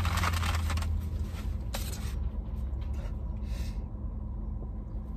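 Handling of a large plastic squeeze bottle of sauce being tipped and squeezed over a foil-wrapped sandwich. It starts with a burst of rustling, then a few sharp clicks, and about three and a half seconds in there is a short hiss as the bottle spurts. A low steady hum runs underneath.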